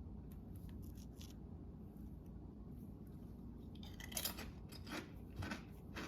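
Faint clicks, then crisp crackling from about four seconds in that grows louder: barbecue-flavoured Doritos tortilla chips being bitten and crunched.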